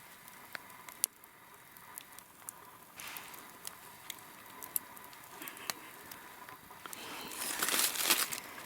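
Wood campfire crackling faintly, with scattered sharp pops and clicks, and a louder rustling noise building near the end.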